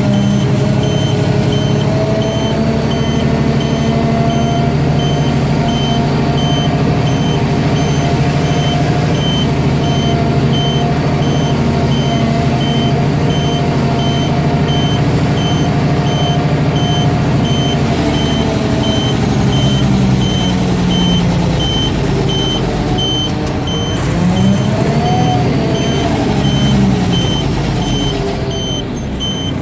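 Mack DM690 concrete mixer truck's diesel engine running while its reverse alarm beeps at an even pace. Near the end the engine revs up and settles back, and the beeping stops.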